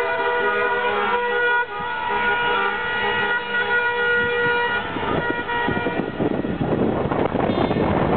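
Many car horns honking at once in celebration, several held tones overlapping in a traffic jam. About five seconds in the horns thin out and a rushing noise takes over.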